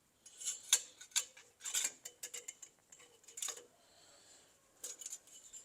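A scatter of light, irregular clicks and clinks, about a dozen, from handling an oil bottle and filler while topping up an engine's oil.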